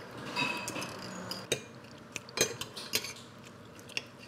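Forks and knives clinking and scraping against white porcelain plates as two people cut into their food, with several short sharp clicks spread across the few seconds.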